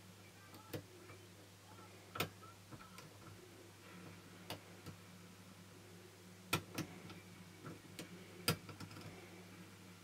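A lock pick working the standard pin tumblers of a brass Securit euro cylinder lock held under a tension wrench. It makes sparse, irregular small metallic clicks, the sharpest about two, six and a half and eight and a half seconds in.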